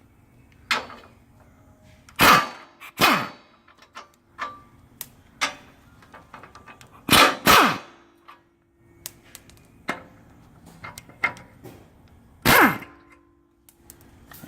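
Impact wrench run in about five short bursts, some in pairs, each winding down with a falling pitch, loosening fasteners, with small metal clicks and taps in between.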